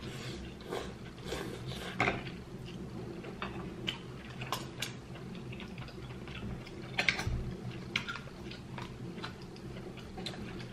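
Eating sounds at a dinner table: chewing, with scattered light clicks and taps of forks and a knife on plates while crab leg meat is picked out and steak is cut.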